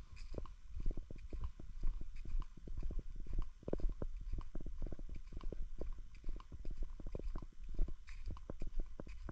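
Wind and handling noise on a walking GoPro action camera's built-in microphone: a low rumble broken by many irregular pops each second.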